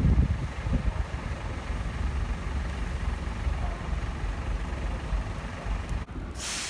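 Road traffic on a snow-covered ring road: vehicle engines and tyres in a low, steady rumble. About six seconds in the sound drops out for a moment, followed by a short hiss.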